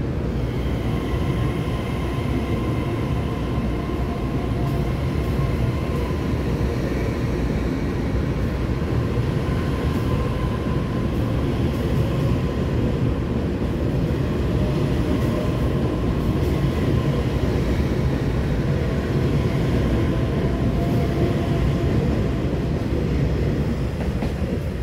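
Taiwan Railway EMU3000 electric multiple unit pulling out of the station and running past: a loud, steady rumble of wheels on rail with a faint steady whine over it. It eases off near the end as the last car passes.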